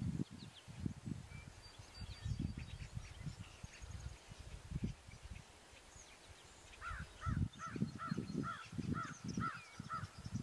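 Morning outdoor ambience: faint birdsong over irregular low rumbles. About two-thirds of the way in, a bird calls a quick run of about eight short, repeated notes, roughly three a second.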